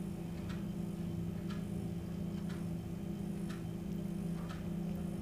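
A steady low hum with a faint, regular tick about once a second.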